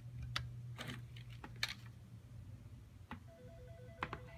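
A few faint, sharp clicks over a low hum, then, about three seconds in, a faint electronic telephone ring starts: two pitches pulsing rapidly on and off, as an outgoing call from the studio console rings through.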